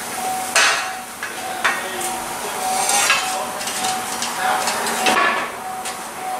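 Metal clanks and several short scrapes as a removed exhaust muffler and tailpipe section is handled and set down under a car on a lift.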